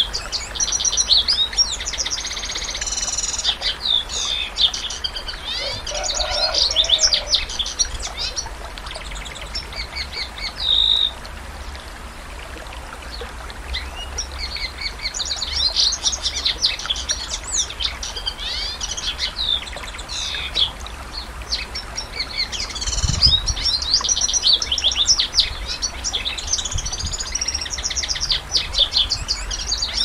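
Domestic canary singing long runs of rapid trills and chattering phrases. A held whistle comes about a third of the way in, followed by a short quieter pause before the song picks up again.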